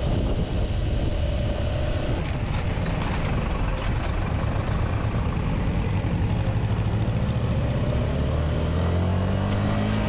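Suzuki Gixxer SF motorcycle's single-cylinder engine running at cruising speed, heard from the rider's own bike with a steady rush of wind and road noise. The engine note rises over the last couple of seconds as it speeds up.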